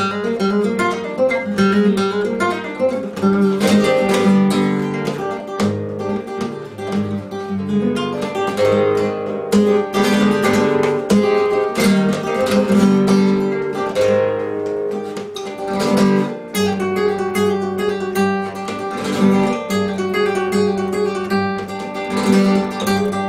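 Acoustic guitar music: strummed chords break in every few seconds between passages of plucked single notes.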